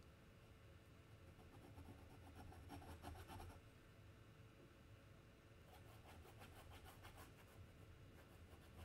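Faint scratching and rubbing of a pen on paper as ink is spread across the drawing. It comes in two stretches, a short one about a third of the way in and a longer one from just past the middle to the end, over a low steady room hum.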